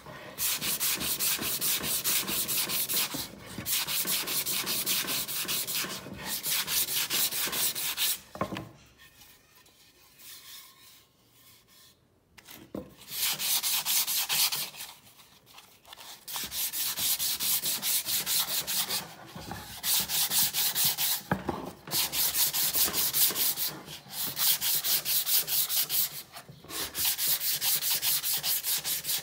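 Sandpaper wrapped around a block, rubbed back and forth by hand over a round wooden board in fast, even strokes. The sanding comes in runs of a few seconds with brief breaks, and stops for about four seconds about a third of the way in.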